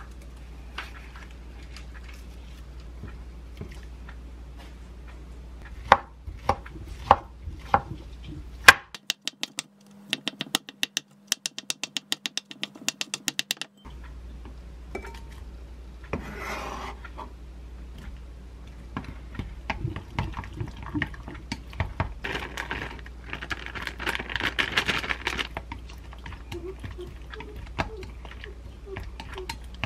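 A knife chopping sweet potato on a wooden cutting board, a quick run of sharp knocks about four a second. Then a utensil stirring and scraping the sweet potato into beaten egg in a glass bowl.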